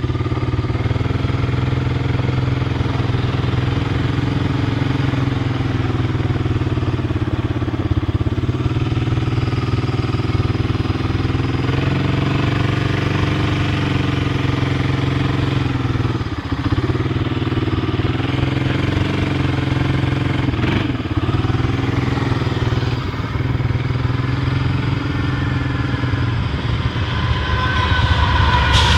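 A motor vehicle engine running steadily, its pitch shifting a little now and then.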